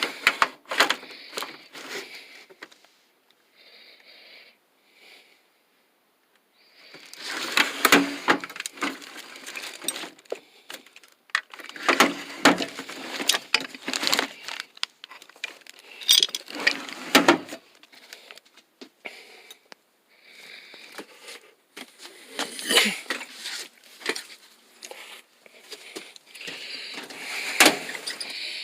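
Tool box drawers sliding open and shut and hand tools clinking and clattering inside them, in irregular bursts with a few seconds' lull near the start.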